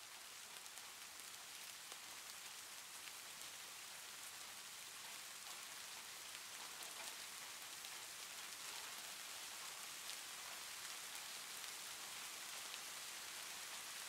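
Steady, even rain-like hiss with faint scattered ticks.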